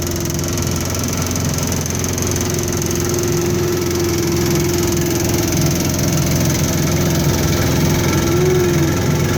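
1970s Evinrude 25 hp outboard motor running steadily at part throttle. The owner suspects it is firing on only one cylinder and giving about half power.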